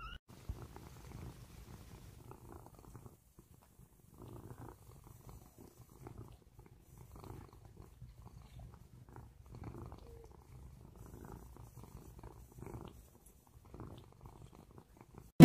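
Cat purring softly and steadily, the purr swelling and fading with each breath.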